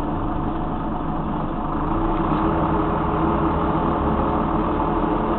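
Scania K93CRB bus's diesel engine running steadily under way, heard from inside the passenger saloon with road noise, growing a little louder about two seconds in.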